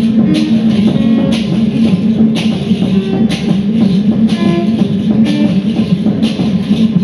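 Live music: a steady low drone under a noisy, hissy hit that repeats about once a second, with short scattered tones between the hits.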